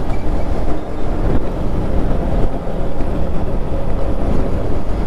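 Wind rushing over a helmet-mounted microphone on a moving motorcycle, with the Yamaha MT-15's engine running steadily underneath at cruising speed.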